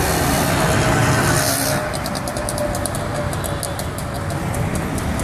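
Auto-rickshaw ride heard from the passenger seat: the small engine running steadily under road and traffic noise. A rapid high ticking joins about two seconds in.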